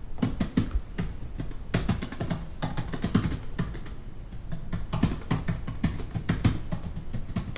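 Computer keyboard typing heard from a distance: quick, irregular key clicks in bursts with brief pauses, heard with the room around it.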